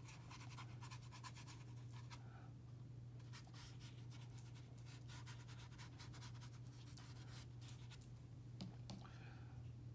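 Faint scratching and dabbing of a watercolour brush on paper, in many short strokes, over a steady low hum.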